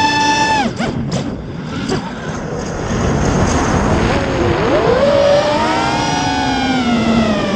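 Spedix Black Knight 210 race quadcopter's brushless motors and propellers whining, recorded from the onboard camera. The throttle is chopped about a second in, leaving a rushing of wind over the camera as the quad flips and dives. Throttle comes back a couple of seconds later with a rising whine, then dips briefly near the end.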